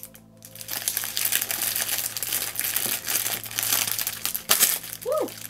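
Iridescent cellophane wrapping crinkling and crackling as it is handled and cut open with a knife, with a louder crackle about four and a half seconds in.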